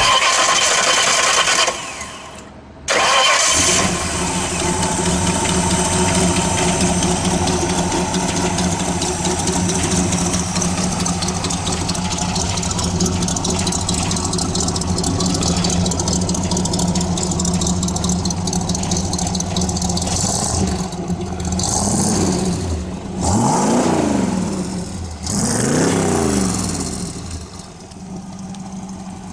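A 302 cubic-inch Ford V8 hot rod engine with headers fires up about three seconds in and runs steadily. Near the end it is revved three times, each rev rising and falling in pitch, then settles to a lower idle.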